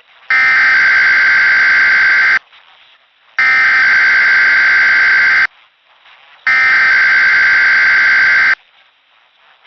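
Weatheradio Canada SAME digital alert header: three identical bursts of data tones, each about two seconds long and about a second apart. They encode and announce the test alert message that follows.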